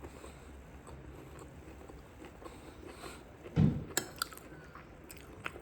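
Close-up chewing of food in the mouth. About three and a half seconds in there is a short, louder low sound, followed by a few sharp clicks.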